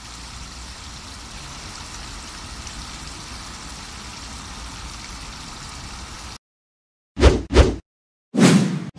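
Fountain jets splashing steadily into their pool, cut off abruptly about six seconds in. Then animated-intro sound effects: two quick short hits, followed by a longer, louder one near the end.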